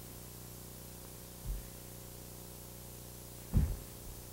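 Steady hiss and low electrical hum of a home camcorder recording, with two dull low thumps, one about a second and a half in and a louder one near the end.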